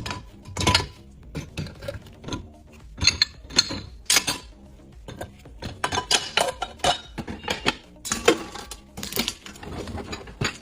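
Dishes and cutlery clinking and knocking irregularly as they are set into dishwasher racks, over background music.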